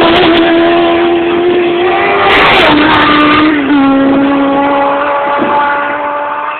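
TT Superbike racing motorcycles passing at racing speed, one right at the start and another about two and a half seconds later. Each high engine note drops sharply in pitch as the bike goes by. The receding engine note then steps down twice at gear changes and fades a little toward the end.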